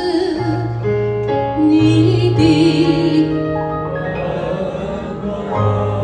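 A woman singing a Mandarin ballad into a microphone, holding notes with vibrato, accompanied by a Yamaha electronic keyboard playing chords and bass notes.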